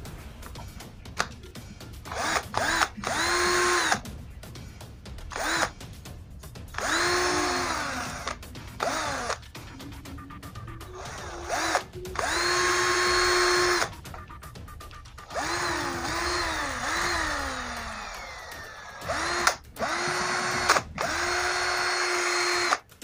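Mitsushi cordless drill, run off a 12-volt e-bike battery, spinning up in a series of trigger pulls of one to three seconds each. Each pull rises to a steady motor whine and then winds down.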